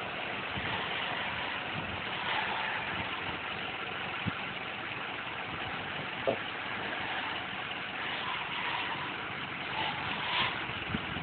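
Pickup truck engine idling steadily, with a few faint knocks.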